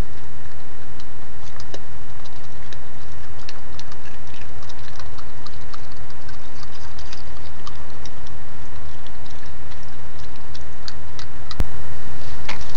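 Small, irregular clicks and scratches from a raccoon handling things with its paws at a wooden wall, over a steady electrical hum with a faint high whine from the camera's recording. A single sharp click comes near the end, after which the hum is a little louder.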